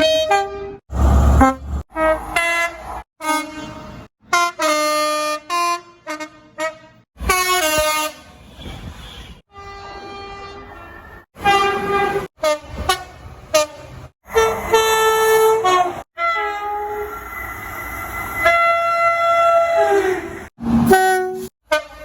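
Train air horns sounding in a rapid string of short clips, each cut off abruptly. Most are chords of several tones sounding together; some are short toots, and one near the end is held for about two seconds.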